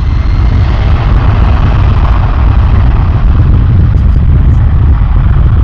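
Boeing 757-300's twin jet engines at takeoff thrust during the takeoff roll: a loud, steady jet noise, strongest low down, growing louder over the first second.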